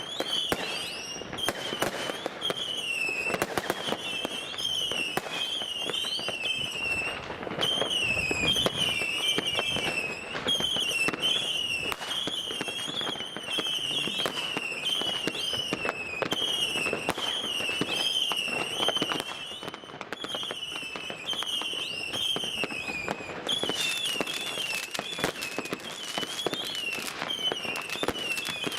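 Many fireworks going off all around: a dense, continuous run of cracks and bangs from rockets and firecrackers. A high warbling whistle rises and falls over them without a break.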